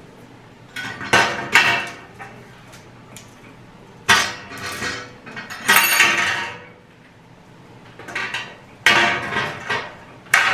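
Black metal mesh file-organizer trays and metal support rods clattering and clinking as they are handled and laid on a glass tabletop, in about five separate bursts with quieter gaps between.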